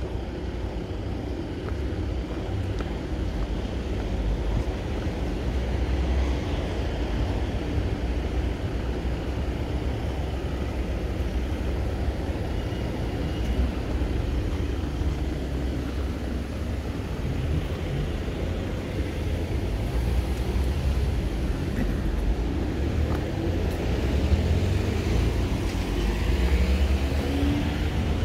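Outdoor town street ambience: a steady low rumble that swells a little over time, with no clear single event.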